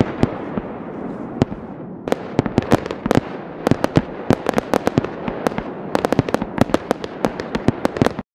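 Aerial fireworks going off: a dense run of sharp cracks and bangs, several a second, over a steady hiss. It cuts off suddenly near the end.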